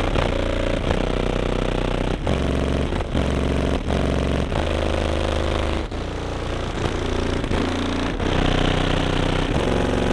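Bass-heavy music played very loud through a car audio system of six Sundown Nightshade 18-inch subwoofers in a folded horn box. Deep bass notes change every second or so.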